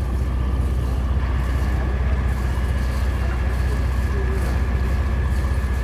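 Diesel engine of heavy site machinery running steadily: a low, fast-pulsing rumble with a faint steady high whine above it.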